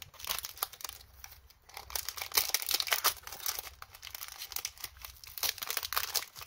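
Foil wrapper of a Pokémon Sun & Moon booster pack crinkling and tearing as hands pull it open, loudest about two to three seconds in.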